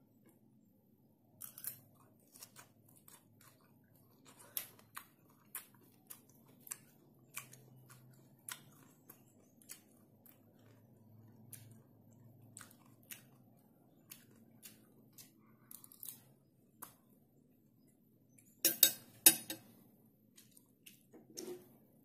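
Close-miked chewing of crunchy bok choy, a sharp crunch about once a second. Near the end there are two much louder clacks.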